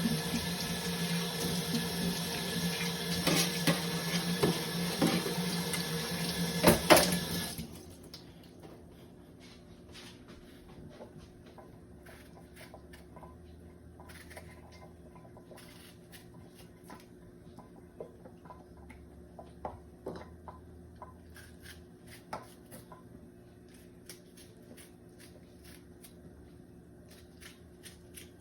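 Kitchen tap running into a sink with splashing as vegetables are rinsed under it, with a few knocks; the loudest knock comes about seven seconds in. The water shuts off about seven and a half seconds in, followed by faint, scattered clicks and knocks of handling in the kitchen.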